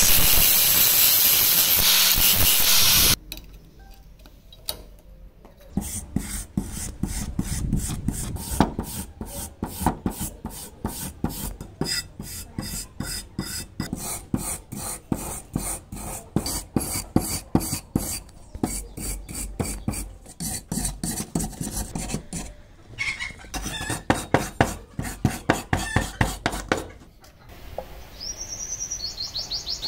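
An angle grinder grinds rusted metal for about three seconds and cuts off. Then a hand wire brush scrubs rust off a cast-iron charcoal iron in quick, even back-and-forth strokes, several a second, with one short pause. A bird chirps near the end.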